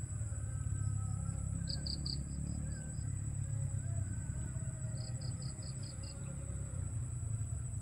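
Insects droning steadily at a high pitch, with two short runs of rapid chirps, about two seconds in and again about five seconds in, over a low steady rumble.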